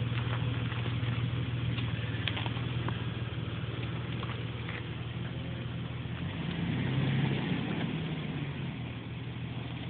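Lifted Jeep Wrangler LJ's 4.0-litre inline-six running at low revs as it crawls over a dirt ledge, rising briefly about six and a half seconds in before easing off again.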